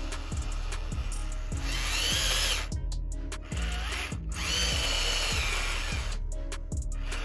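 The small electric drive motor and gearbox of an RC model tractor whine as it drives its wheels through loose sand. The whine comes in two spells that rise and fall in pitch, with short pauses between, over background music with a steady beat.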